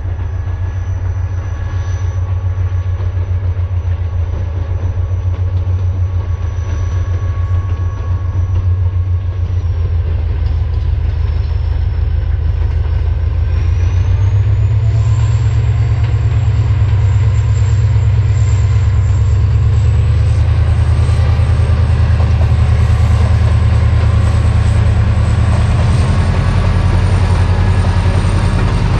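Pakistan Railways HGMU-30 diesel locomotive hauling an express passenger train, its heavy engine drone and the train's rumble growing louder over the first half and then staying loud. A thin high whine rises in pitch about halfway through.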